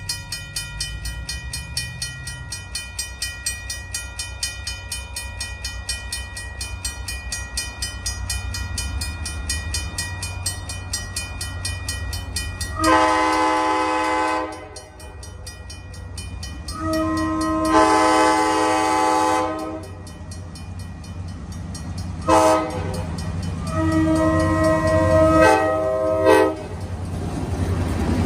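Grade-crossing bell dinging rapidly and steadily, then a diesel locomotive's multi-note air horn blowing the crossing signal: long, long, short, long. The EMD FL9 locomotive's engine rumble grows as the passenger train reaches the crossing near the end.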